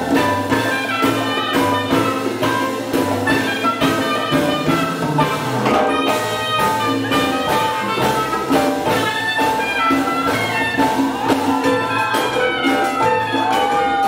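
Live Afro-Cuban jazz band playing with a steady beat, upright bass, drum kit and congas under held melody notes.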